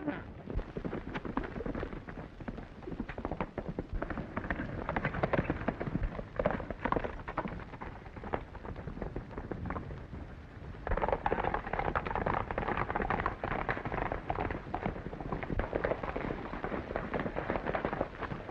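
Horses galloping: a rapid, uneven clatter of hoofbeats on dirt, getting thicker and louder about eleven seconds in.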